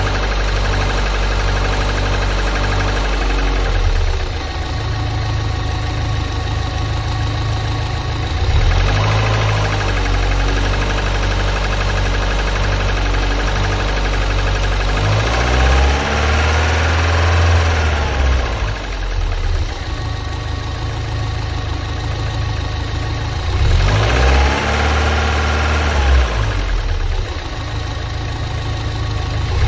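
Lotus Elise S2 111S's 1.8 K-series VVC four-cylinder engine idling and being revved up and back down four times, the longest rev near the middle. It makes a knocking and howling that the owner fears is a failure.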